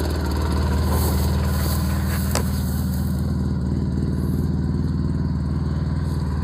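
A 2008 Polaris RZR 800 EFI's twin-cylinder four-stroke engine idling steadily and running nicely, with no revving.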